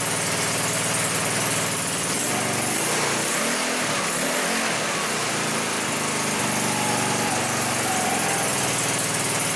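A 150cc four-stroke overhead-valve go-kart engine running at a raised throttle, its speed rising and falling a little a few seconds in. It runs smoothly with freshly adjusted valves and sounds amazing.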